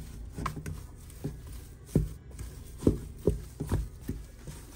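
Kitchenware being handled on a counter: a series of irregular light knocks and taps, about eight in all.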